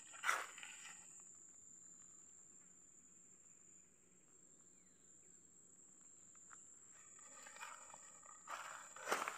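Footsteps crunching on dry leaf litter and twigs, once just after the start and several times near the end, with a quiet stretch between. Under them runs a steady high-pitched insect buzz.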